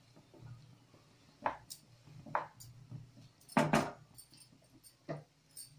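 Wooden spatula stirring and turning fried rice in a metal kadai: a few scattered scrapes and knocks against the pan, the loudest about three and a half seconds in, over a faint steady low hum.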